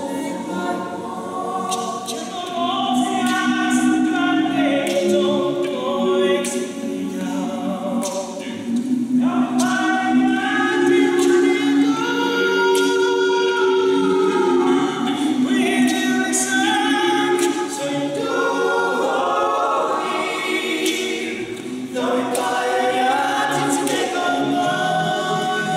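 Male a cappella vocal quartet singing in close harmony, unaccompanied and without microphones, with new phrases entering about nine seconds in and again near the end.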